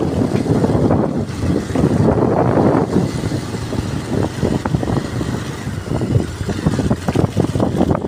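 Gusty wind rumble on the microphone mixed with the running noise of the moving vehicle it is filmed from, a dense uneven rumble with no steady engine note standing out.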